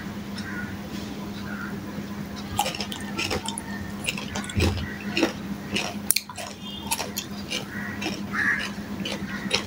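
Eating by hand from a steel plate: scattered small clicks and soft smacks of fingers working rice and fried hilsa against the plate and of eating, over a steady low hum.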